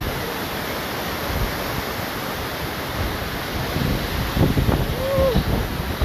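Waterfall pouring into a pool close by, a steady rush of falling water. From about four seconds in, low bumps of buffeting on the phone's microphone.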